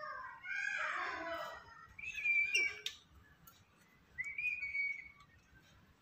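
Black-capped lory calling: a drawn-out, wavering call in the first second or so, then two short high whistles about two and four seconds in.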